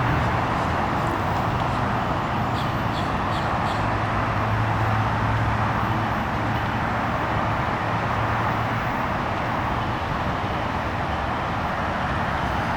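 Train passing behind a BL36PH diesel locomotive: a steady noise of wheels on the rails over a low engine hum that swells and eases.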